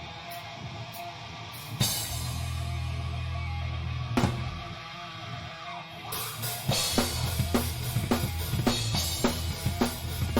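Live band with the drum kit close up. Light cymbal strokes at first, then a crash hit with a held low guitar-and-bass chord about two seconds in and another hit about four seconds in. From about six seconds the full kit drives a steady beat with kick, snare and cymbals.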